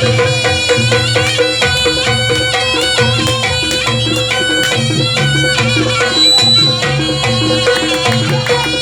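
Traditional Javanese barongan accompaniment playing: steady hand-drum rhythm under a pitched, sustained melody.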